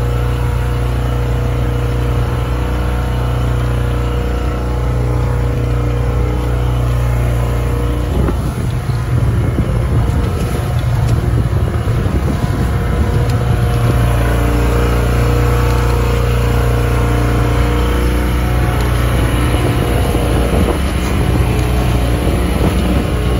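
A sailboat's motor running steadily under way. From about eight seconds in, wind on the microphone and rushing water join it.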